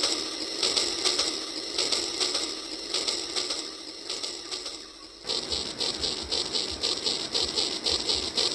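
Battery-powered toy train running on plastic track, its small gear motor and wheels making a rapid, regular mechanical clicking. The clicking changes abruptly about five seconds in.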